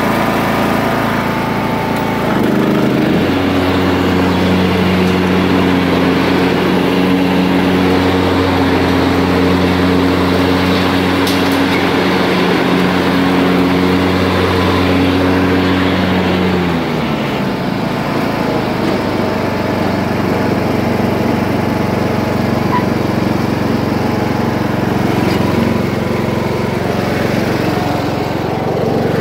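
Riding lawn mower's 17.5 hp Briggs & Stratton engine running. Its note steps up about three seconds in, holds steady, then drops to a lower, rougher running note a little past halfway.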